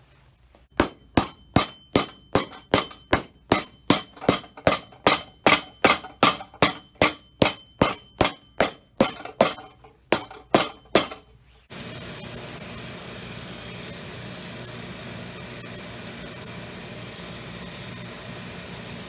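Cobbler's hammer tapping a shoe sole down, about three blows a second for some ten seconds, each with a metallic ring. Near the end the hammering stops and a workshop machine motor starts, running with a steady even noise.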